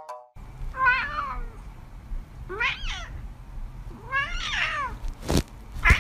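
Domestic cat meowing: three separate meows about a second and a half apart, each rising and falling in pitch. A sharp knock follows near the end, then a louder meow begins.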